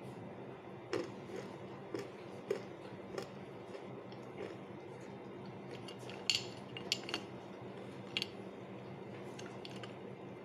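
Pieces of edible clay and shale stone clinking against a ribbed glass dish as a gloved hand picks through them: scattered light clicks, a dozen or so, with a cluster about six to seven seconds in, over a steady low hum.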